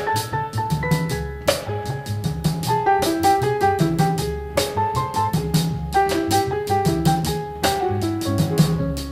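Instrumental background music with a steady drum kit beat and a melody of short stepped notes.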